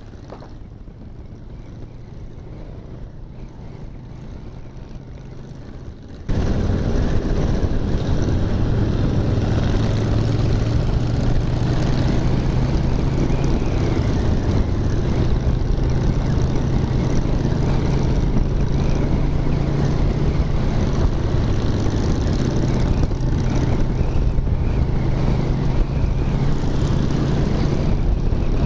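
Suzuki Intruder 800 V-twin cruiser motorcycle running at steady cruising speed, with a low engine drone and heavy wind rush on the mounted camera. It is faint at first, then about six seconds in jumps suddenly to full level and stays steady.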